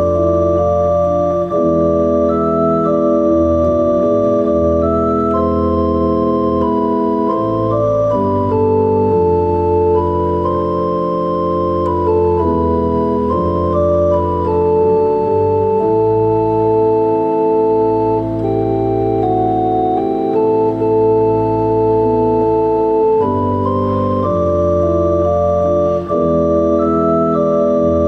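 Cathedral pipe organ playing slow sustained chords, a melody moving over long-held bass notes.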